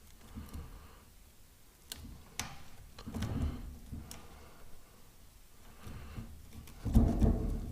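Roller chain and its connecting link being handled and worked into place: a few sharp metallic clicks and duller clunks, the loudest a low clunk near the end.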